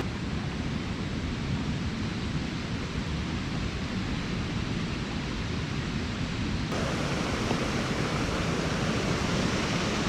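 Fast-flowing creek water rushing steadily, turning brighter and fuller about two-thirds of the way through.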